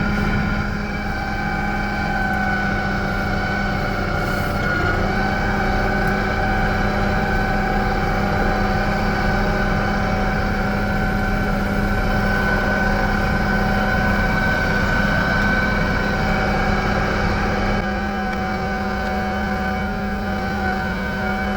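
Farm tractor's engine running steadily while moving a round hay bale to unroll it, with its note stepping slightly a few times.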